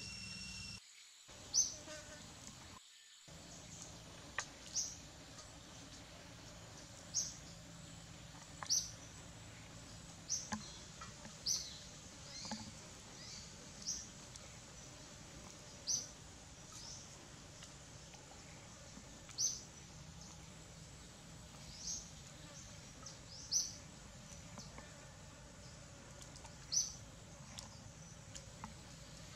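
A bird's short, high chirps, repeated at irregular intervals of one to three seconds over faint forest background.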